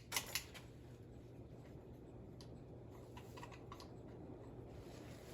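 A few light clicks and taps from the unplugged fan being handled, sharpest in the first half second, with fainter ones a little past the middle, over a low steady hum.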